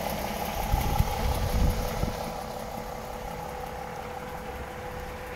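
2019 DAF XF 480 truck's diesel engine idling steadily, with a steady whine over the engine hum. A few low thumps in the first two seconds are the loudest sounds.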